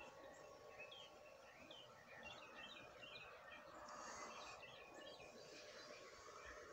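Near silence, with many faint, quick, high chirps throughout, such as small birds make when heard from afar.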